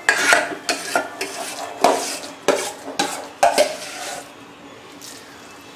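Metal spoon clinking and scraping against steel cooking vessels, about nine sharp strikes in the first four seconds, as cooked rice is mixed into hot milk.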